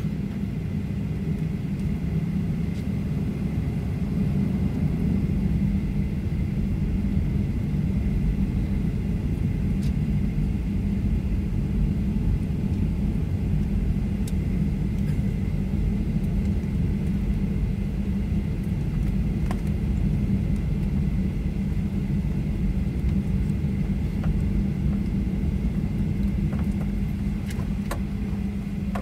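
Inside the cabin of a Boeing 737-900 taxiing: its CFM56-7B engines at low power with a steady low rumble and a faint steady high tone.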